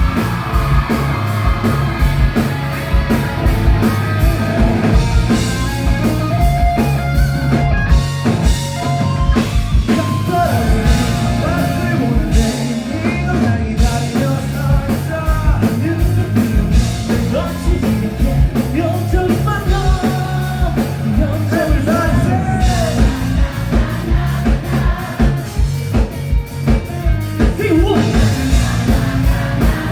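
Live rock band playing loudly through a concert PA, with drum kit, electric bass, guitars and singing, heard from the audience.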